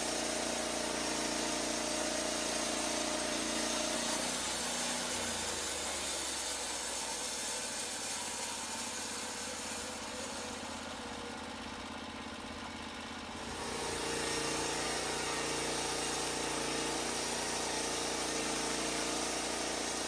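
Norwood Lumber Pro HD36 bandsaw mill's engine running steadily. Its note fades and drops in level for several seconds in the middle, then comes back.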